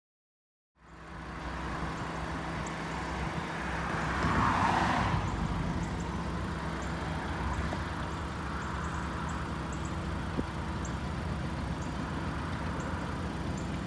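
Diesel locomotives of an approaching freight train, an EMD SD70ACU leading two GE AC44C6Ms, running in the distance: a steady low engine drone that begins just under a second in. A brief swell of rushing noise comes about four to five seconds in.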